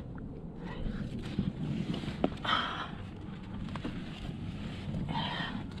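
Wind rumbling on the microphone, with a climber's hard breaths about two and a half seconds in and again near the end, and a couple of sharp clicks.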